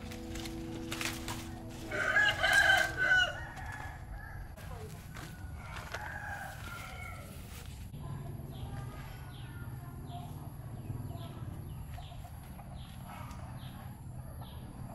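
A rooster crows loudly about two seconds in, with a fainter crow around six seconds. A few sharp clicks come just before the first crow. From about eight seconds on, short falling high chirps repeat roughly twice a second.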